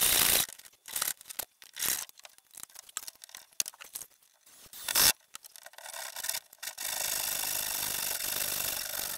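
Saw cutting through a wooden framing board: scattered knocks and scrapes of wood being handled, one sharp knock about five seconds in, then a steady stretch of sawing from about seven seconds in that fades near the end.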